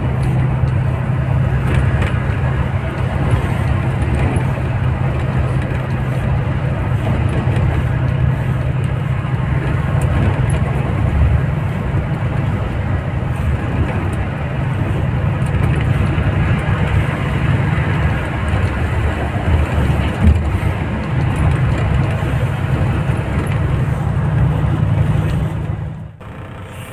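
Steady engine and tyre noise of a road vehicle driving at highway speed, with a low steady hum under it; it drops away abruptly near the end.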